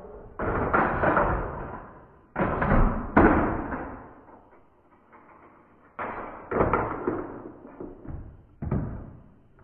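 Slowed-down sound of plastic toy pieces knocking and clattering as a playset chain reaction runs. It comes as about seven deep, drawn-out knocks in clusters, each fading over a second or so.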